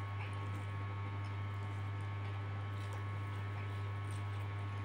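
Steady low electrical mains hum, with faint soft mouth sounds of eating noodles by hand.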